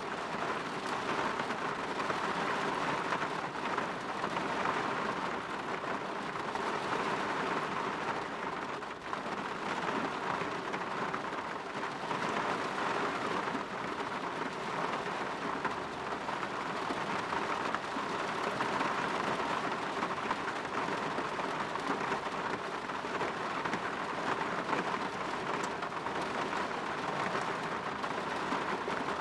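Steady rain falling and pattering on a window pane, an even hiss with no breaks or changes.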